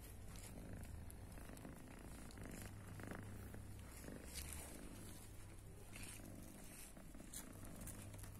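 Faint cat purring that comes and goes with each breath, with light scratchy rustles over it.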